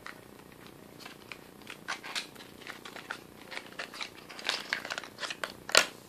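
Close handling noise as a small lip-tint package is taken apart: a run of crinkles, rustles and small clicks, with the sharpest click near the end.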